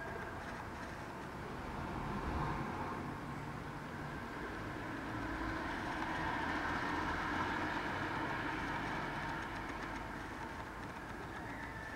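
Rumble of passing vehicle traffic, swelling briefly about two seconds in and again for a few seconds in the middle before easing off.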